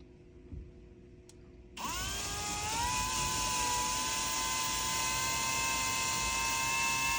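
Cordless Kobalt drill with a 1/2-inch bit starting up after a couple of faint clicks, about two seconds in, and boring into the wall. Its motor whine rises in pitch as it spins up, then holds steady and high.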